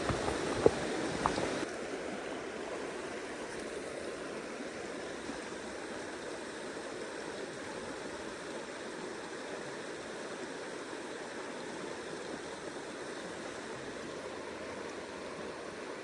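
Mountain trout stream running steadily over its bed. It is louder for the first couple of seconds, with one sharp click about half a second in, then settles to an even, lower rush.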